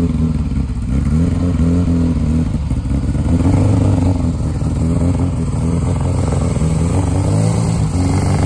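Austin-Healey 'Bugeye' Sprite race car's engine running as the car creeps forward under its own power, revved up and eased off again and again.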